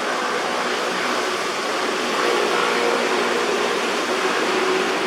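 A steady rushing noise with no distinct events, slightly louder from about two seconds in.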